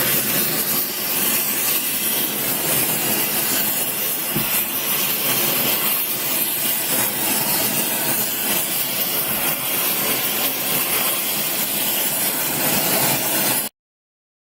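Oxyacetylene torch with a heating tip burning with a steady hiss as it preheats a cast iron fitting, the flame set slightly carburising. The hiss cuts off suddenly near the end.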